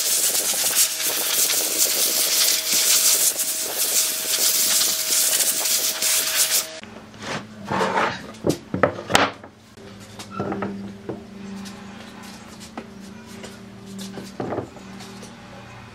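Electric power tool running on wood with a steady whine, cutting off abruptly about seven seconds in. Then scattered knocks and rubbing as the workpiece is handled, over a low hum.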